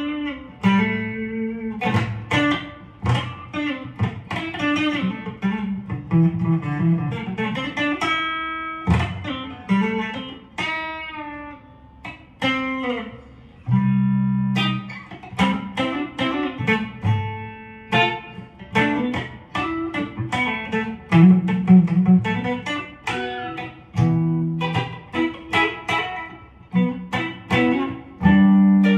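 Telecaster-style electric guitar with twin humbuckers played clean on the neck pickup, with a sweet tone: picked single-note phrases mixed with ringing chords, some notes left to sustain.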